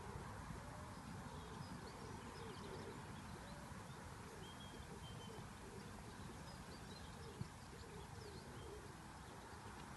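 Faint bird calls and chirps scattered over a steady outdoor background noise, with a single sharp knock about seven and a half seconds in.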